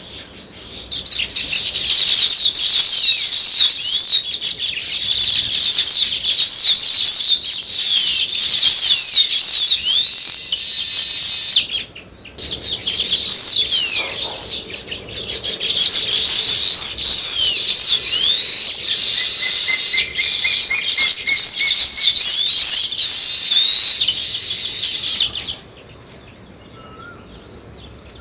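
A flock of small songbirds chirping loudly and continuously in a dense chatter of rapid, high, downward-sliding notes. It starts about a second in, breaks off briefly near the middle, and cuts off suddenly a few seconds before the end.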